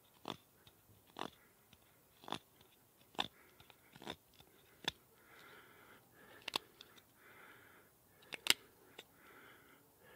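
Dutch Blade Works Xerxes folding knife whittling a fresh green stick: short, crisp slicing strokes of the blade shaving through the wood, about one a second at first, then further apart, the loudest near the end.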